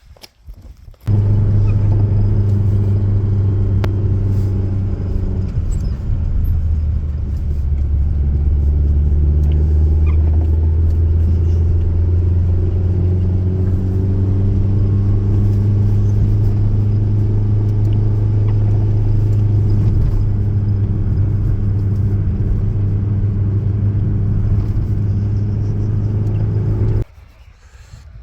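An engine running steadily with a loud, low hum. It starts abruptly, its pitch drops slightly about six seconds in, and it cuts off abruptly near the end.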